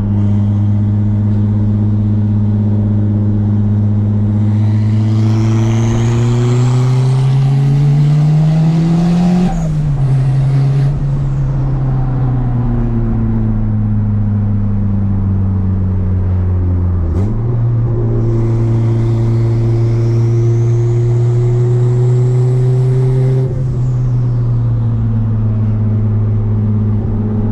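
Turbocharged Honda D16Z6 four-cylinder pulling hard under boost twice, with a high turbo whistle rising as boost builds. Each pull ends in a sudden break as the throttle closes, about ten seconds in and again near the end, with a brief rush of released air at the first lift.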